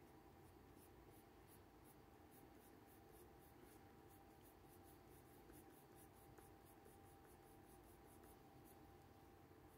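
Faint scratching of a coloured pencil on paper, short shading strokes repeating several times a second.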